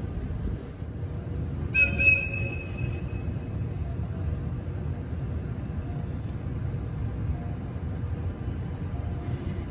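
A short, high-pitched whistle blast about two seconds in, over a steady low rumble in a railway freight yard where an electric locomotive is being shunted.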